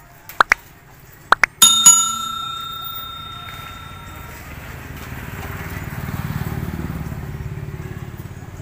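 Light metallic clicks, then two loud bell-like strikes in quick succession that ring on for a couple of seconds. A low rumble then swells and eases over the last few seconds.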